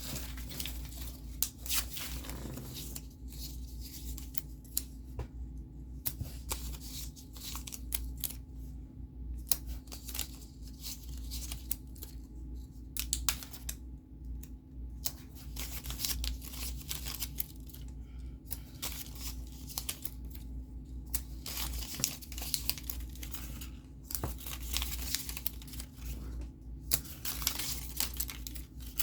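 Paper and plastic kit pieces being handled and packed: irregular rustling, crinkling and small taps over a steady low hum.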